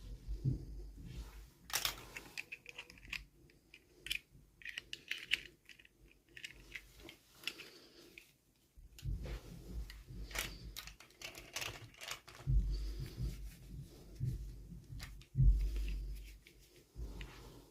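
Small plastic toy packaging handled and opened by hand: a run of sharp clicks, crinkles and tearing rustles, with a few dull knocks.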